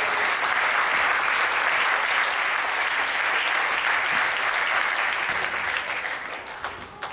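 A church congregation applauding: many hands clapping together, which dies away near the end.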